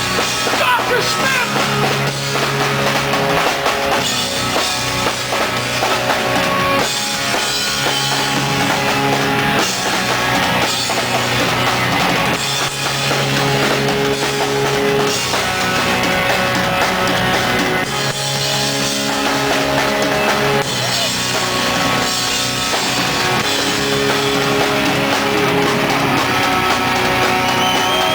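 Rock band playing an instrumental passage with a pounding drum kit, electric guitar and bass; no singing.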